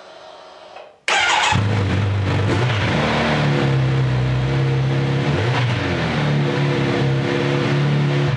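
Kawasaki Z900RS inline-four on its stock exhaust, started about a second in: a short burst of starter cranking, then the engine catches and settles into a steady idle with one brief waver in pitch midway. The sound cuts off sharply at the end.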